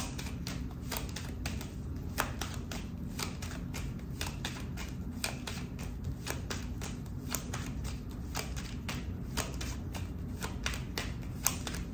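A deck of large fortune-telling cards being overhand-shuffled by hand: a continuous run of short card flicks and slaps, about three or four a second.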